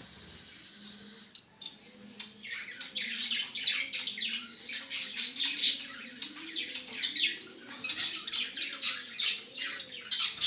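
Bengalese finches (society finches) in a cage chirping and chattering: a quick, dense stream of short high calls that starts about two seconds in and keeps going.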